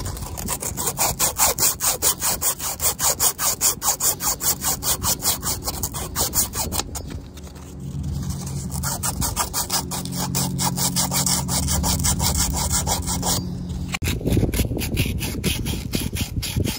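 Sand cloth rubbed back and forth by hand on a copper water pipe, a fast rhythmic scrubbing. It is cleaning paint and tarnish off the copper to get it ready for soldering.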